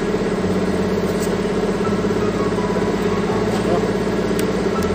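An engine running steadily at idle, a loud even hum with a low pulse, with a faint click about a second in and another near the end.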